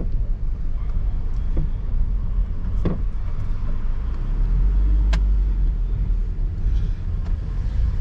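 Car rolling slowly with a window open: a steady low engine and road rumble, with a couple of short clicks about three and five seconds in.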